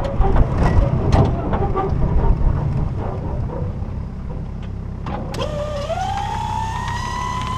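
Open winch-towing vehicle on a rough farm road: a low rumble with wind and frequent rattling knocks. About five seconds in, a mechanical whine rises in pitch and then holds steady.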